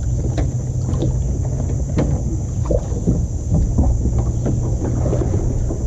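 Kayak being paddled off: wind rumbling on the microphone, with scattered light knocks of the paddle and hull.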